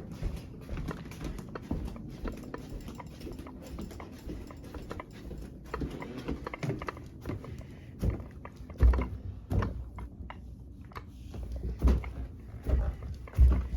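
Irregular small clicks and knocks, with a few heavier low thumps in the second half.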